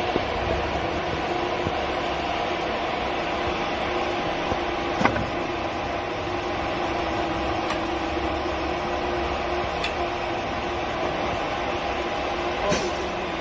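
ATC CNC router humming steadily as it runs its automatic tool-length calibration, with a few faint steady tones. Three sharp clicks, the loudest about five seconds in, and a short hiss near the end.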